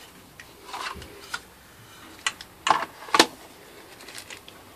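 Light clicks and knocks of a new letterbox's parts being handled, including its telescopic sleeve; about half a dozen scattered clicks, with two sharp knocks about three seconds in the loudest.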